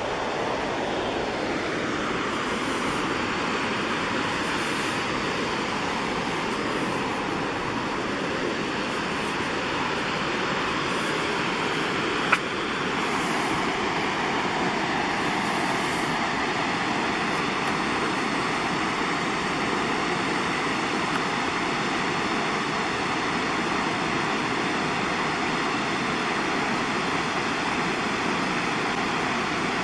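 Twin Falls, a 31-foot waterfall, giving a steady rush of falling water. A single sharp click cuts through about twelve seconds in.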